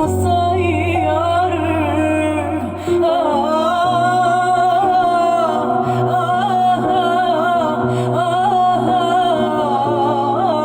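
Egyptian Arabic song: a wavering, ornamented melody line, sung or played, over long held bass notes that shift about three seconds in.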